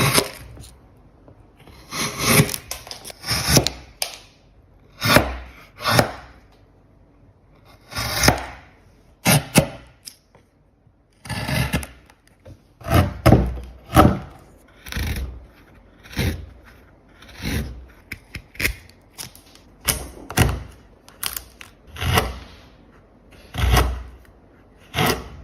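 A hand tool working wood in a series of short scraping strokes, roughly one a second at an uneven pace.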